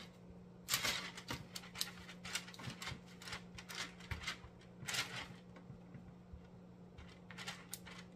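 Silicone spatulas scraping and tapping cookie dough against parchment paper on a baking sheet: irregular soft scrapes and taps, several of them, over a faint steady low hum.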